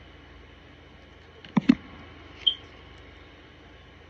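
Tarot cards being handled and swapped: two quick sharp taps close together about a second and a half in, then a brief high chirp a second later, over a faint steady room hum.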